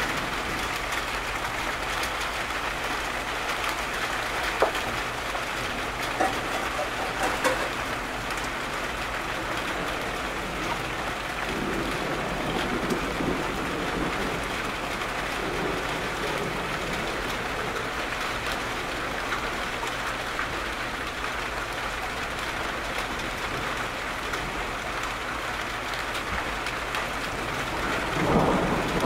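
Steady rain falling, with a few sharp drop taps in the first third. A low rumble of thunder swells up near the end.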